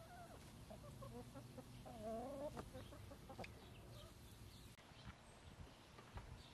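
Backyard hens clucking softly, with a few low warbling calls that die away after about three and a half seconds.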